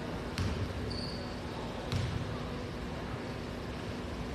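Basketball bounced twice on a hardwood gym floor, about a second and a half apart, as a free-throw shooter dribbles at the line.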